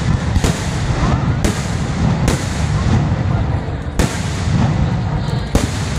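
Aerial firework shells bursting overhead: about six sharp bangs, roughly one a second, over a continuous low rumble and crackle from the display.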